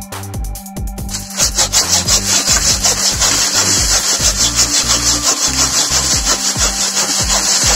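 Hand saw cutting through a sawn-off acacia branch in quick back-and-forth strokes, starting about a second and a half in. Background music with a beat plays under it.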